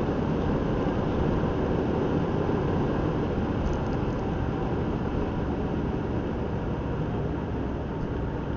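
Steady engine and tyre noise of a car driving at cruising speed, heard from inside the cabin through the windscreen-mounted dashcam.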